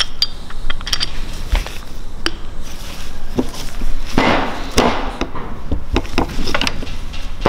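Metal parts of a BMW S54 Vanos unit clicking and knocking as they are handled on a workbench, with two short scraping sounds about four and five seconds in.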